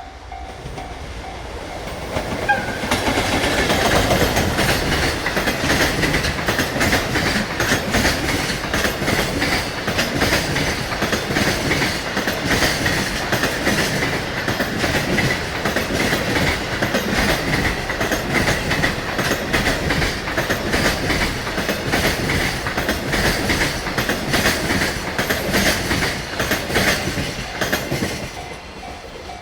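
Freight train hauled by a JR Freight EF65 electric locomotive passing at speed, its wheels clacking over the rail joints in a fast, dense rhythm as about twenty container wagons roll by. The sound builds over the first few seconds and dies away near the end.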